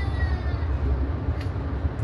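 Steady low rumble of a moving Amtrak passenger train, heard from inside the coach, with a single short click about one and a half seconds in.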